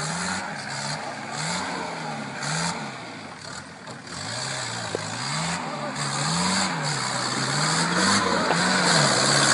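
Off-road jeep engine revving up and down again and again, its note rising and falling every second or so as the driver works the throttle to climb a steep rocky dirt track.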